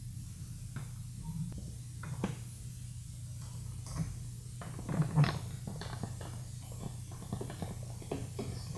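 Phillips screwdriver turning a small screw into a plastic battery cover: faint scattered clicks and scrapes over a low steady hum, the loudest about five seconds in.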